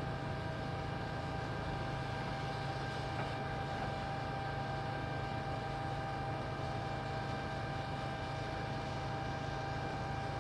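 Construction machinery running steadily, a constant engine hum with a steady whine over it.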